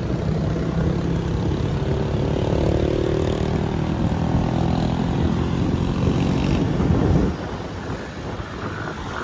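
Motor scooter engine running at road speed with road and wind noise. The loud engine drone falls away suddenly about seven seconds in, leaving quieter road noise.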